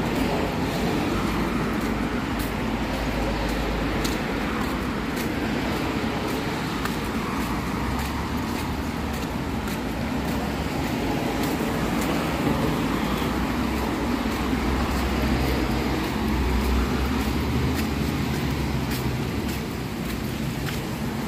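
Road traffic noise: a steady hiss of passing cars, with a low rumble that swells twice.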